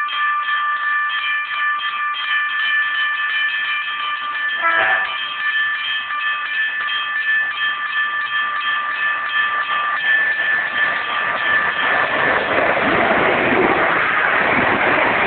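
Level crossing warning bell ringing in quick repeated strokes, about three a second, as a passenger train approaches. From about twelve seconds in, the noise of the passing train builds up and takes over.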